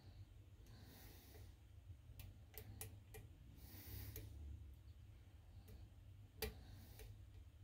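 Faint, scattered clicks of a metal lock pick and tension tool working the pins inside a lock cylinder, with a louder click about six and a half seconds in. Soft breaths through the nose come twice in between.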